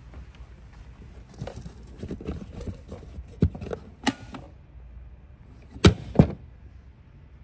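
Handling noises on the truck's rubber floor mats: rustling and light knocks as a hand moves over them, with two loud sharp knocks close together about six seconds in.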